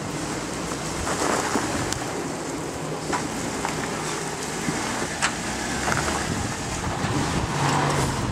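Jeep Wrangler JK's engine running at low revs as it crawls over rock, with the tyres grinding on stone and a few sharp knocks. The engine note grows a little stronger near the end.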